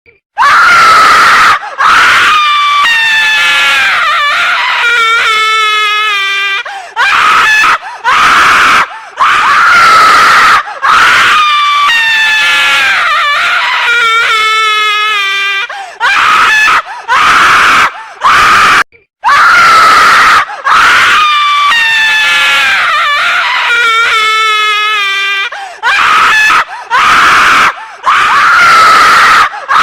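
A woman screaming loudly, over and over: long, high screams, some sliding down in pitch into a shaky, wavering tail, with short breaks between them. The same run of screams starts over about two-thirds of the way through.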